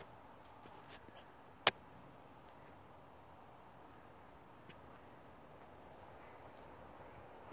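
Crickets trilling steadily in one high continuous tone over a faint hiss, with one sharp click about a second and a half in.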